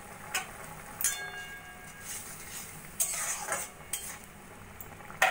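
Spatula scraping and clinking against a kadai as simmering olive chutney is stirred, a few separate strokes over a steady bubbling sizzle. There is a short faint ring after the clink about a second in.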